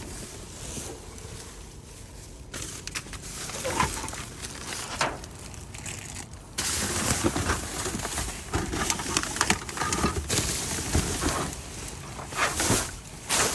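Plastic bags and packaged items rustling and crinkling as they are handled, irregular clicks and crackles that grow louder about two and a half seconds in and again about six and a half seconds in.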